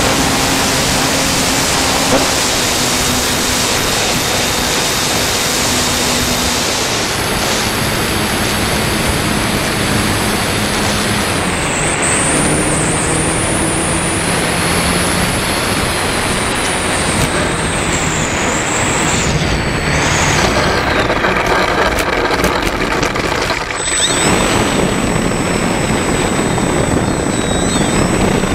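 Electric motor and propeller of an FMS Super EZ radio-controlled trainer plane in flight, heard from a camera on the plane under heavy wind rush over the microphone. A high motor whine rises and falls with the throttle. Near the end the plane is on the grass with the propeller still turning and a steady high whine.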